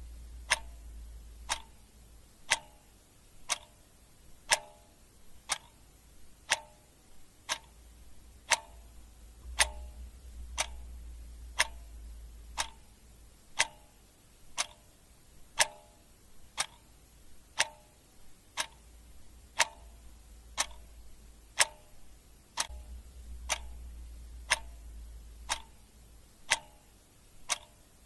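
Clock ticking steadily, about once a second, each tick a sharp click. A low rumble comes and goes underneath.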